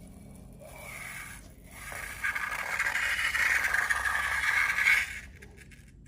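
Slime being worked, making a scraping, hissing sound. It is faint at first, loud from about two seconds in, and stops about five seconds in.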